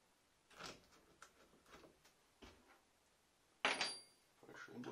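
Light clicks and rustles of handling at an idle scroll saw, then a sharp metallic clink with a brief ring about three and a half seconds in, followed by a short rattle, as a small metal hand tool is picked up from the workbench.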